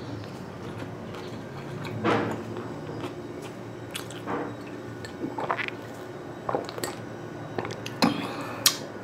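A man drinking water from a glass close to the microphone: a string of separate swallows, wet mouth sounds and small clicks, the sharpest about two seconds in and near the end.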